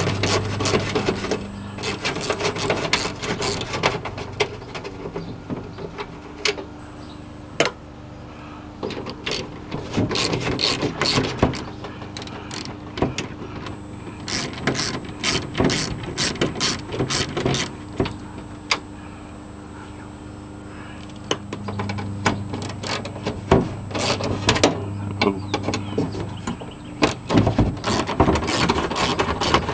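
Hand tools and metal parts at work on a van's rear door hardware: many irregular clicks, rattles and ratcheting, with a steady faint hum through the middle.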